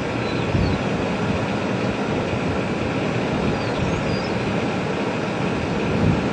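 Wind blowing across the microphone: a steady rushing rumble with gusty low buffeting.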